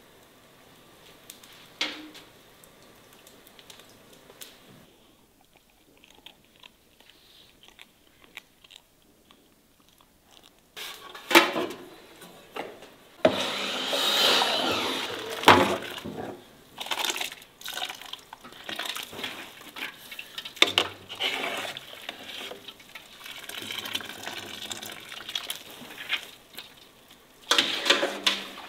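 Water pouring and splashing in a large aluminium cooking pot, loudest for a few seconds in the middle, with a few sharp knocks of metal pot and lid.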